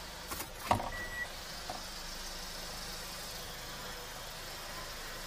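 Car engine idling, heard inside the cabin as a steady low hum. A few clunks come in the first second, the loudest under a second in, followed by one short beep.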